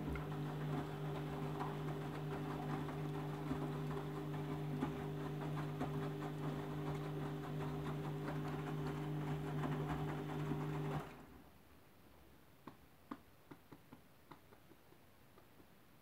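Candy Grand'O Vita washing machine tumbling a full load in its final rinse: a steady motor hum with water sloshing and splashing in the drum. The hum stops abruptly about eleven seconds in as the drum pauses, leaving a few faint ticks.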